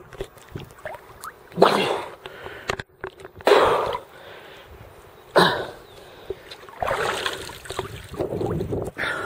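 Lake water splashing and sloshing close to the microphone in repeated rushing surges, about one every one and a half to two seconds.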